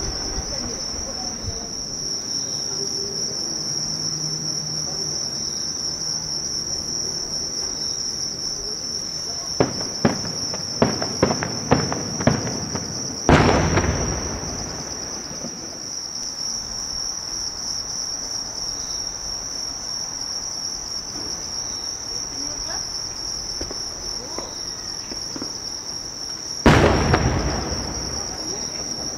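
Fireworks at a distance: a quick run of sharp cracks, then a heavy boom with a rolling echo about thirteen seconds in, and another boom near the end. Insects chirp steadily throughout.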